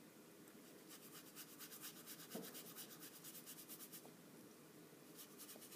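Faint, quick strokes of a fine paintbrush brushing across paper, several strokes a second, pausing briefly about four seconds in before starting again.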